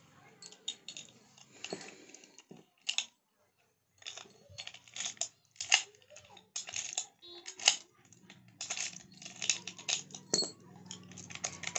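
Small metal objects, a padlock among them, clicking, tapping and scraping against a hard floor as they are handled, in an irregular run of sharp clinks.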